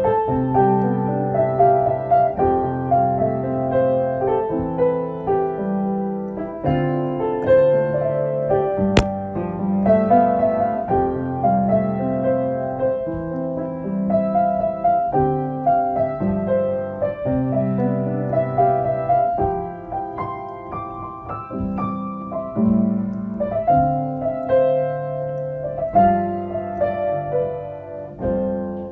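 Background piano music, chords and a melody moving at an even pace, with a single click about nine seconds in.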